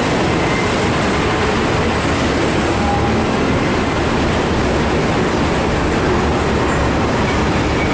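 Broad-gauge container freight wagons rolling past close by: a loud, steady rumble and rattle of wheels on the rails that does not let up.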